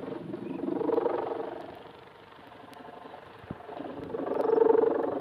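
Ribbon hummer (sendaren) on a flying pegon kite droning in the wind, a buzzing hum that swells about a second in, fades, then swells louder again near the end as the wind on the kite rises and falls.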